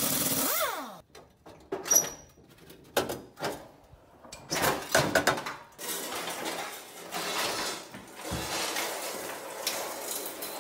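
Steel exhaust parts of a 2007 Subaru Impreza clanking as the cat-back exhaust is dropped from under the car: a short noisy burst that winds down at the start, a sharp metallic click with a brief ring about two seconds in, then a run of knocks. From about six seconds on, the long exhaust pipe scrapes as it is dragged across the concrete floor.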